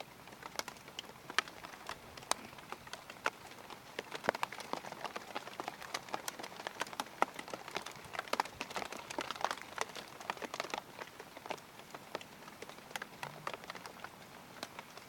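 Rain falling, with many irregular sharp drops tapping close by over a soft hiss; the tapping is densest in the middle stretch.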